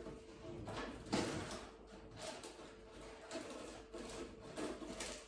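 Faint handling noises: a few soft knocks and rustles at irregular moments, over a faint steady hum.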